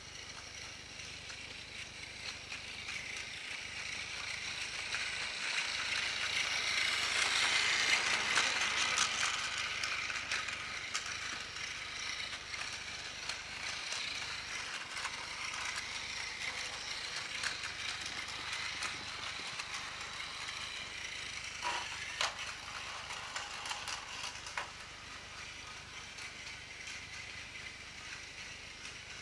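Battery-powered TOMY Plarail toy train, its small geared motor whirring and its wheels clattering over plastic track. It grows louder as it comes close, peaks about eight seconds in, then runs on steadily, with a few sharp clicks past the twenty-second mark.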